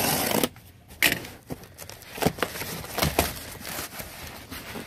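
A cardboard shipping box being handled and pulled open on a wooden table: a short burst of scraping at the start, then a sharp knock about a second in and scattered scrapes and rustles of cardboard.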